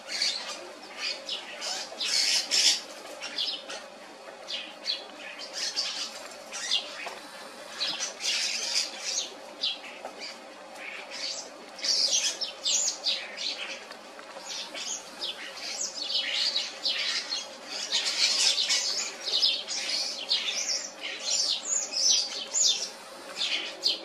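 A flock of juvenile starlings squabbling at a bird feeder: high, scratchy calls in dense bursts every second or two, with wing flutters as birds land and take off.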